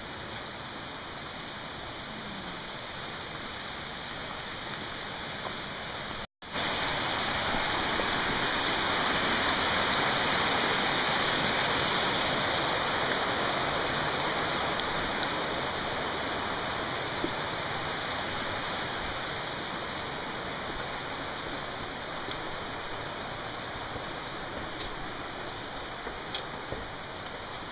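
Steady rush of water from a mountain stream, swelling to its loudest about ten seconds in and slowly fading after, with a brief dropout about six seconds in.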